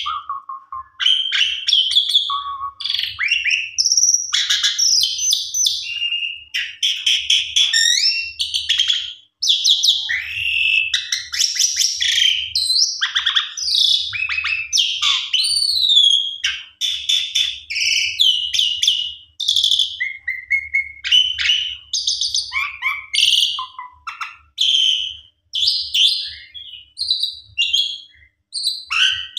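Asian pied starling (jalak suren) in full song: a long, varied run of loud whistles, gliding notes, squeaky chatter and rattling phrases with only brief pauses.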